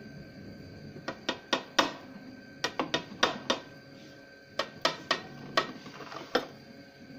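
Metal wheel pizza cutter rolling through a pizza and clicking against the plate beneath. About fifteen sharp clicks come in three bursts.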